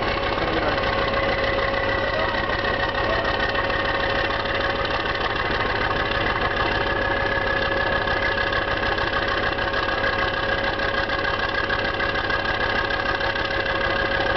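Arjun tank's V10 diesel engine running steadily, with a constant whine over the engine note.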